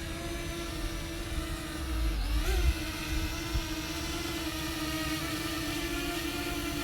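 Parrot Anafi quadcopter's propellers whining steadily as it comes in to land, the pitch dipping and coming back up briefly about two and a half seconds in. A low rumble swells around the same time.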